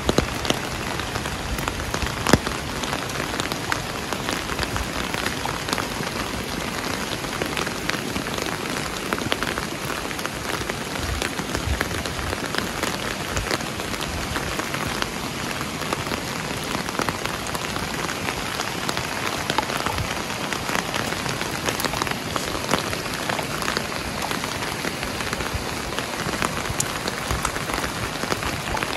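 Steady rain falling, with a continuous hiss and many individual drops pattering sharply.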